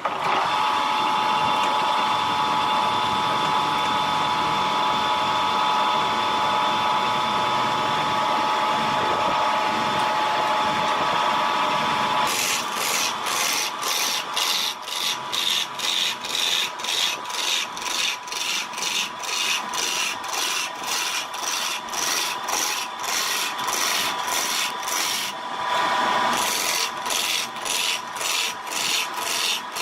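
Wood being worked: for about the first twelve seconds a steady machine whine with a scraping hiss, then rhythmic rasping strokes on wood, about two a second.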